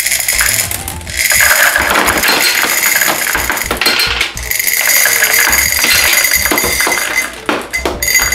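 Hard gumballs pouring out of a glass jar into a glass gumball-machine globe, a dense clattering rattle of many small balls hitting glass and each other. The clatter starts about a second in, runs thick for several seconds and thins to a few scattered clicks near the end, over background music.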